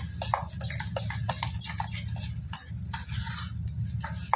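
Fingers squeezing and kneading wet crushed slate pencil paste in a stainless steel bowl: quick, irregular wet squishes and clicks, a few a second, over a steady low hum.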